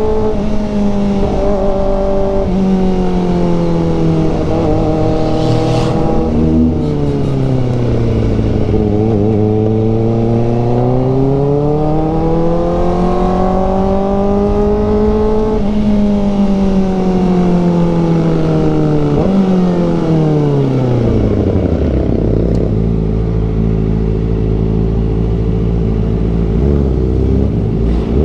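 Kawasaki ZX-4RR's 399 cc inline-four engine heard on board while riding, its pitch climbing and dropping with throttle and gear changes. From about sixteen seconds in the revs fall away, with a downshift on the way down, and the engine settles to a low steady note before a couple of blips near the end. Wind noise runs underneath.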